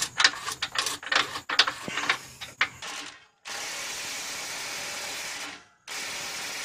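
Ratcheting wrench clicking irregularly as a nut on the new lower control arm is run down. Then comes a steady hiss that starts and stops abruptly, twice, with a short break between.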